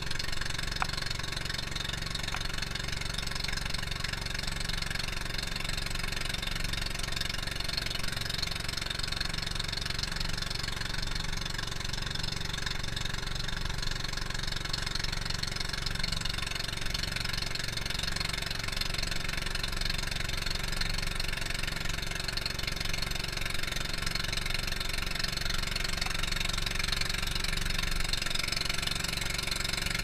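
Outrigger fishing boat's engine running steadily with an even drone.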